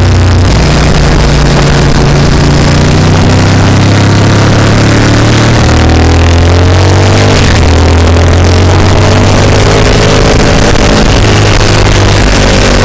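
Motorcycle engine at speed, heard from on board the bike: the engine note climbs under acceleration and drops in steps at gear changes, twice in a row. A steady rush of wind noise runs underneath.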